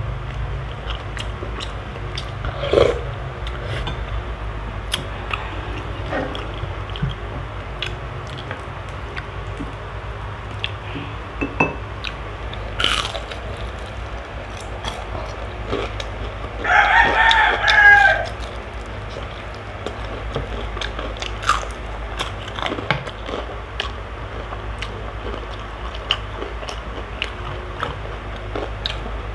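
Close-up eating sounds: chewing and crunching of crispy okoy, with small clicks of a spoon against a glass bowl, over a steady low hum. About 17 seconds in, a rooster crows once for about a second and a half, the loudest sound here.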